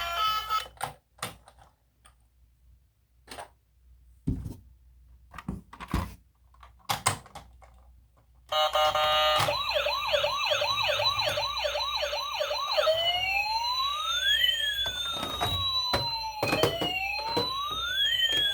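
Scattered light clicks and knocks, then about eight seconds in an electronic siren starts: first a fast repeating yelp, then slower rising and falling wails, two of them overlapping and crossing in pitch.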